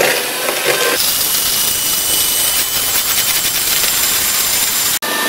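Electric hand mixer running at high speed, its beaters whipping eggs and sugar in a plastic bowl: a steady whirring hum. The whir grows louder about a second in and breaks off for an instant near the end.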